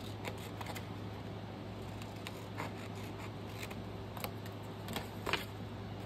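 Scissors snipping through a paper book page in a series of separate short cuts, the sharpest near the end, over a steady low hum.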